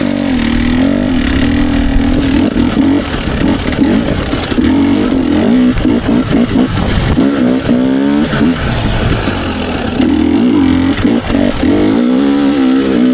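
Dirt bike engine running under varying throttle, its pitch rising and falling as the rider works the throttle. There is a run of quick revs in the middle.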